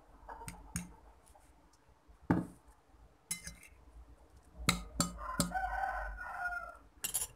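A fork clinking against a ceramic bowl several times while mixing fried instant noodles. About five seconds in, a rooster crows for nearly two seconds.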